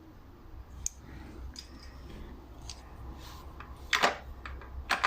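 Scattered light clicks and taps of metal parts being handled while a component is worked off the gearbox shifter assembly, with two sharper clicks near the end.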